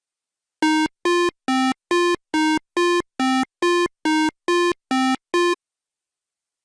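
Short electronic synthesizer tune: eleven buzzy beeping notes, about two a second, stepping between a few low pitches, stopping about a second before the end.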